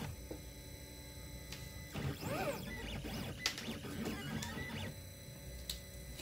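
Small 3D-printed plastic parts clicking and scraping against each other and the tabletop as they are picked through by hand, with the busiest scraping a couple of seconds in. A faint steady hum runs underneath.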